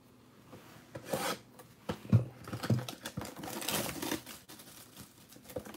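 Plastic shrink wrap being torn and peeled off a sealed cardboard box of trading cards: irregular rustling and scraping with a few sharp crackles. It starts about a second in.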